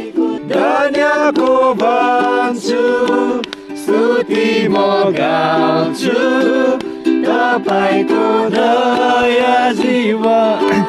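Background music: a song with a singing voice over a plucked string accompaniment.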